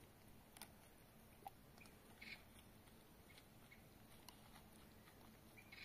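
Near silence: faint background noise with a few soft, scattered clicks.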